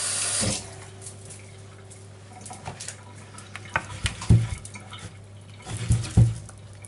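A spatula stirring prawns in a creamy sauce in a bowl, with soft scraping and a few sharp knocks of the utensil against the bowl about four and six seconds in. There is a brief rustle of handling at the start and a low steady hum underneath.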